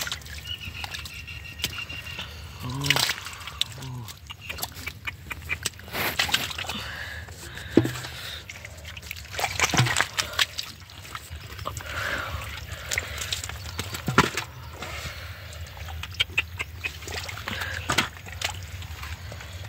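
Hands and bare feet working through thick mud and shallow water: irregular sloshing, squelching and splashing, with scattered sharp wet slaps.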